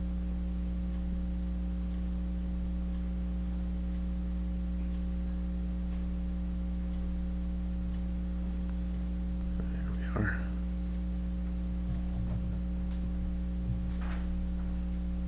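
Steady electrical mains hum with several fixed low tones, unchanging through a quiet pause; a brief voice sound about ten seconds in.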